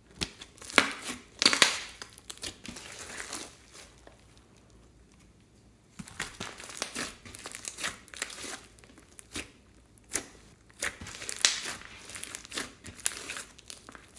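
Slime being squeezed and worked by hand, giving bursts of crackling and popping; it stops for about two seconds partway through, then starts again.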